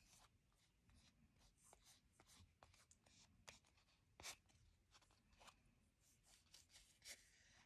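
Near silence with faint rubbing and a few light taps and ticks of paper and card being handled.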